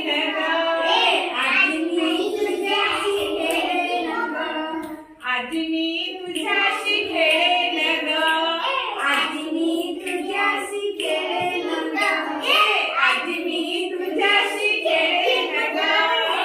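A woman and a group of young children singing a Marathi action song without instruments, the children repeating her lines. There is a short break about five seconds in.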